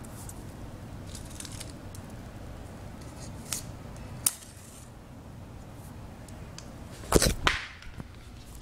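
Handling noise on a phone microphone: a low rumble with a few sharp clicks, then a loud burst of rubbing and knocking near the end as the phone is moved.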